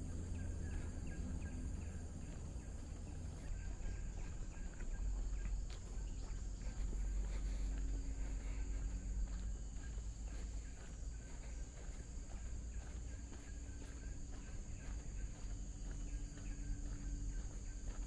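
Forest insects keeping up a steady high-pitched drone over a steady low rumble, with faint footsteps on a path.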